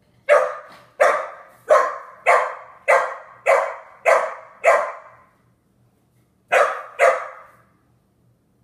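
A young dog gives alarm barks at a balloon it is wary of: eight sharp, high barks about two-thirds of a second apart, a short pause, then two more.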